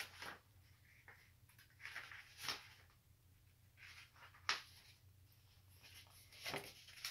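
Faint rustles and taps of a paper picture book being handled and its pages opened, a few short sounds spread a second or two apart, the sharpest about four and a half seconds in, over a faint steady low hum.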